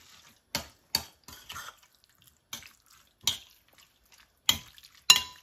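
Kitchen handling sounds as diced chicken thighs are seasoned: scattered sharp clicks and taps with quiet gaps between them, and a louder clink that rings briefly near the end.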